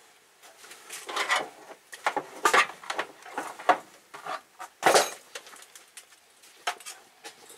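Irregular handling noises from hand work on the alternator wiring: scattered clicks, rustles and light clatters, the loudest a short scrape about five seconds in.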